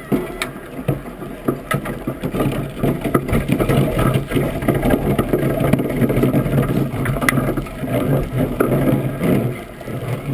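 Iceboat runners rumbling and chattering over snow-dusted lake ice as the boat slides along, with a steady low hum and many small clicks and knocks through the hull.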